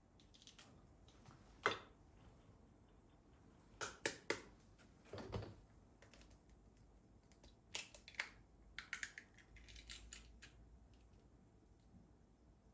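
Light clicks and taps of small objects being handled, coming irregularly, with a quicker run of little clicks about two-thirds of the way through.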